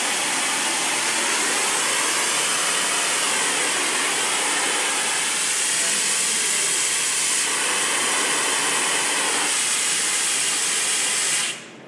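Rimrock F220 forging spray wand blowing a steady hiss of compressed air and atomized die lubricant, cutting off suddenly near the end.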